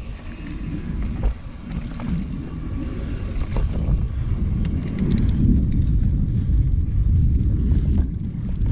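Mountain bike rolling over a dirt singletrack, heard as a steady low rumble of tyres and wind on the microphone, with scattered clicks and rattles from the bike and a quick run of light ticks about five seconds in.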